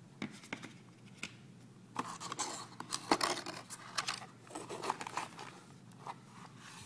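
Cardboard box flaps and paper booklets being handled and pulled out of a small product box: a run of short rustles, scrapes and sharp clicks of card and paper, busiest from about two seconds in.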